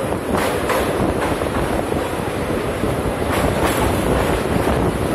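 Passenger train running over a steel truss bridge: a steady rumble with wheels clattering over rail joints at uneven intervals.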